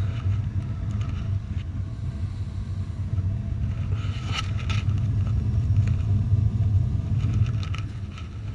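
Replacement gas burner in a 50-gallon A.O. Smith commercial water heater firing with a steady low rumble, running after the faulty Ultra Low NOx burner was swapped out. A brief knock about four seconds in.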